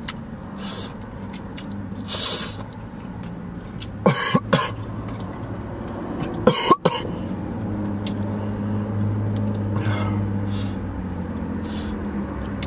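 A man coughing from the heat of extremely hot Blazin chicken wings. There are two quick double coughs, about four and six and a half seconds in, with breathy exhales between them, over a steady low hum.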